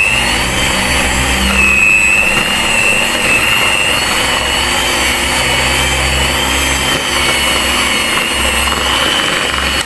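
Miyako electric hand mixer running, its beaters churning crumbly cookie dough of flour, butter and milk powder. A steady motor whine that wavers a little in pitch, stopping at the very end.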